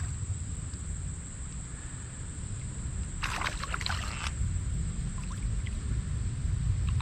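A low steady rumble, with a burst of water splashing about three seconds in, from a hooked smallmouth bass thrashing at the surface during the fight.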